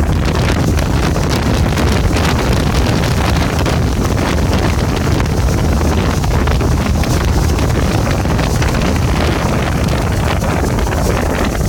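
Loud, steady wind buffeting the microphone over the running engine of a speedboat towing at speed, with the rush of its wake.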